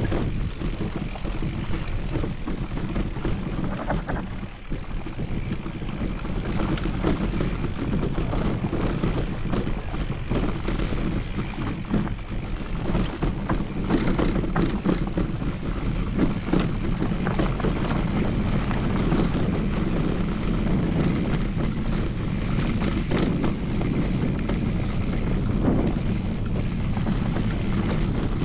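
Steady low wind rumble on the microphone of a mountain bike in motion, with frequent clicks and rattles from the bike over a rough stony trail.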